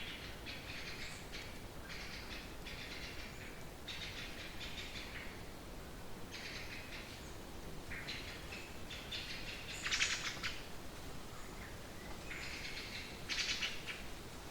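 Gusty trade wind: a steady low rumble with repeated bursts of high, crackly rustling as gusts come through. The loudest bursts come about ten seconds in and again near the end.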